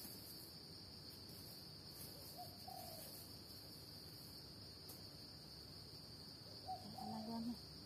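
Insects droning steadily in a high pitch in dry forest, with two brief faint pitched sounds, one about two and a half seconds in and one near the end.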